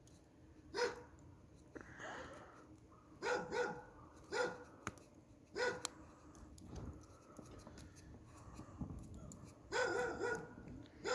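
A dog barking in short, sharp barks, singly and in quick pairs, several times over the span with pauses of a second or more between them.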